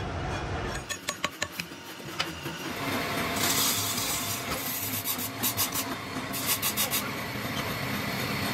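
Handling noise from a heavy steel shaft being shifted by hand on a workshop floor: a quick run of sharp knocks and clicks, then scraping and rubbing with further clusters of short knocks.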